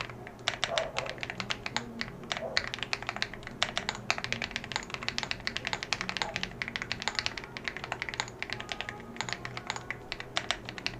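Continuous fast typing on a CIDOO ABM066 mechanical keyboard with lubed KTT Grapefruit linear switches and screw-in stabilizers, several keystrokes a second, heard through a low-quality headphone microphone.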